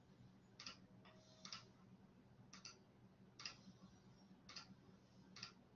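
Faint, short clicks, about six of them at uneven intervals, as the lecture slide's animation is stepped forward, over a low steady hum.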